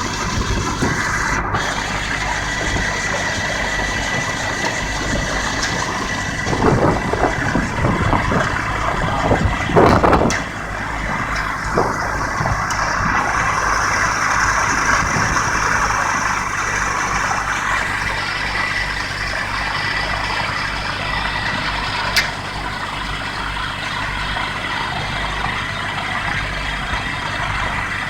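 Gyrocopter engine and rotor running steadily, heard from aboard the aircraft, with a few louder surges of noise about a third of the way in.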